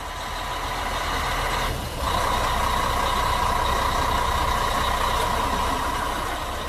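Heavy vehicle engine running with a steady high whine over a low rumble. It fades in at the start and out at the end, with a brief break about two seconds in.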